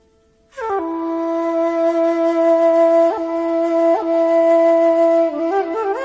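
Background music: a flute enters about half a second in with a short falling slide and holds one long steady note, with two quick grace-note flicks and a run of ornaments near the end.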